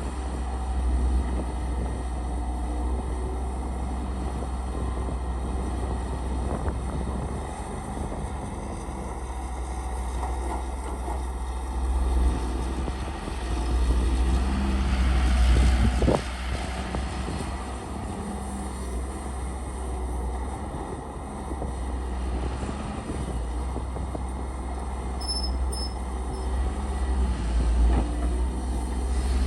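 Caterpillar excavator's diesel engine running with a steady low rumble, swelling louder for a few seconds around the middle.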